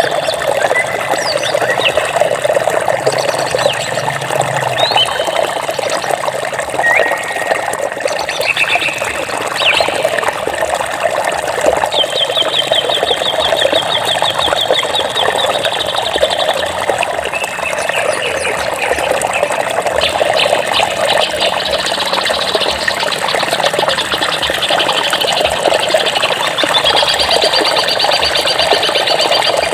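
Water flowing steadily in a forest stream, with birds chirping over it: short whistled calls, a rapid trill about halfway through, and dense fast trilling near the end.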